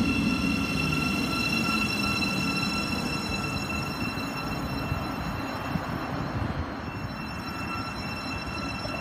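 Thameslink Class 700 electric multiple unit running with a steady high-pitched electrical whine of several tones over a low rumble. The rumble fades away after the first few seconds.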